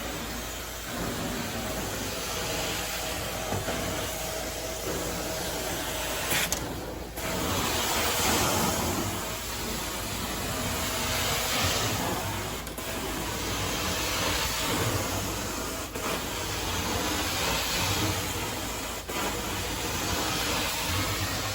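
Carpet-cleaning extraction wand spraying and sucking hot water through the carpet. A steady hiss swells and fades every few seconds with each stroke, and breaks off briefly about seven seconds in.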